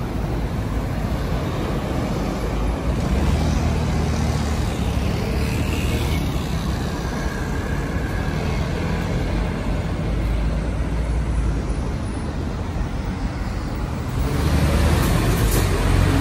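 Busy city road traffic: a steady rumble of car, taxi and bus engines and tyres passing close by. It grows louder near the end as a double-decker bus and a large tanker lorry pass.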